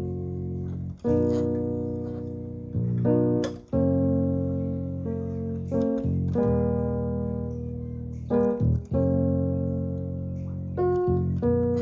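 Background music: keyboard chords struck one after another, each ringing and slowly fading before the next, changing every second or two.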